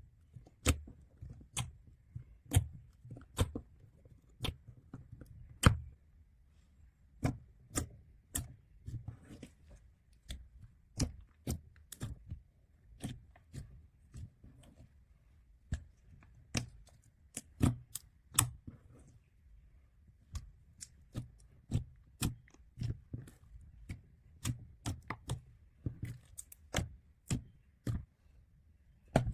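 Slime being pressed and squeezed by hand, making irregular sharp clicks and pops, about one or two a second.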